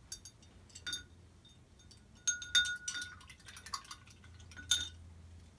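Paintbrush being rinsed in a water cup, clinking repeatedly against the cup with short ringing chinks. The clinks come in a quick cluster a couple of seconds in and again near the end.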